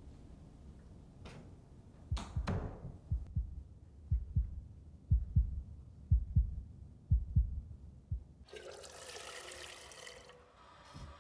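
Low paired thumps about a second apart, in a heartbeat rhythm, for several seconds. Then, near the end, a toilet flushes with a rush of water lasting about a second and a half.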